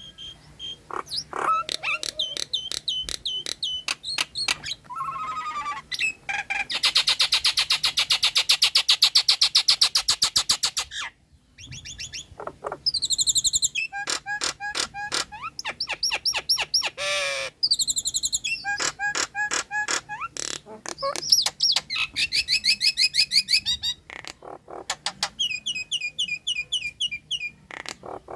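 Nias hill myna singing a varied, loud run of whistles, chattering phrases and rapid repeated notes, pausing briefly twice.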